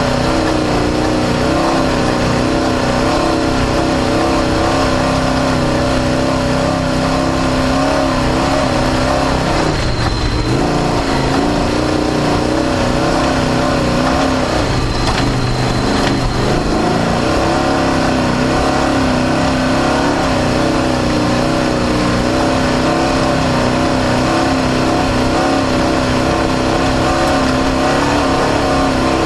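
Off-road desert race vehicle's engine running hard at high revs, heard onboard. The loud, steady note wavers, with two brief drops in revs about ten and fifteen seconds in.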